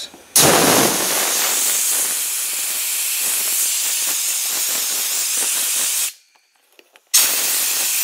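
Compressed-air blow gun with a brass nozzle blasting air through a plastic dishwasher filter to blow out trapped specks. A loud, steady hiss lasts about six seconds, stops for a second, then starts again near the end.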